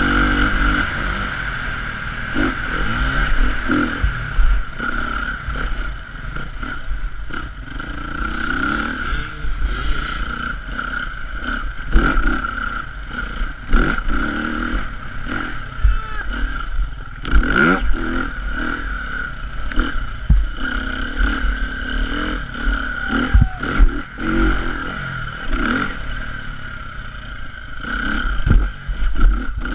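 Dirt bike engine revving up and down as the rider accelerates and eases off on a rough track. Frequent sharp clattering knocks from the bike hitting bumps run through it.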